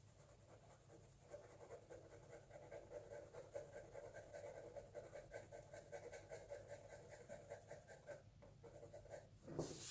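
Pencil shading on paper: a faint, quick scratching of back-and-forth strokes that starts about a second in and stops shortly before the end, followed by a brief louder rustle.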